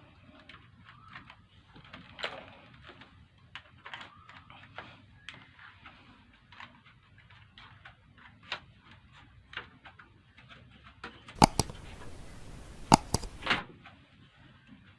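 Plastic clicks and taps of a laptop's bottom cover being handled and pried open, followed near the end by a louder stretch with a few sharp snaps as the case clips let go.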